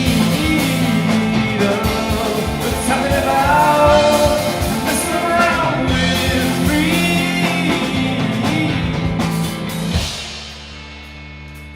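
Rock band playing with a singer. About ten seconds in the band stops on one final hit, leaving a chord ringing on, much quieter.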